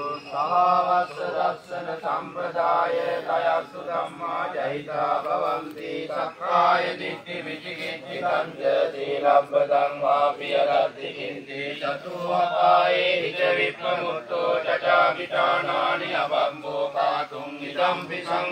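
Buddhist monks chanting pirith (Pali protective verses) together in a steady, continuous recitation by low male voices.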